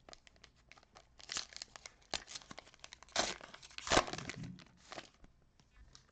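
Foil trading-card pack wrapper being torn open and crinkled by hand: a run of irregular crackles and rustles, with the loudest rips about three and four seconds in.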